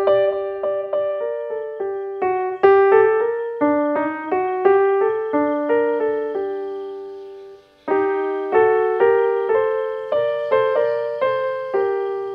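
Background piano music: a slow melody of single struck notes, each fading away, with a brief pause about eight seconds in before the notes resume.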